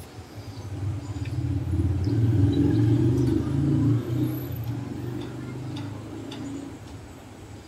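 A motor vehicle's engine passing by: a low rumble that builds over the first couple of seconds, is loudest around the middle, then fades away.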